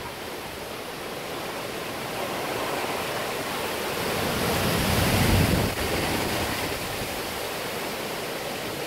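Hurricane wind gusting through tall trees, a steady rush that swells to a peak about five seconds in and then eases. At the peak the gust buffets the microphone with a low rumble.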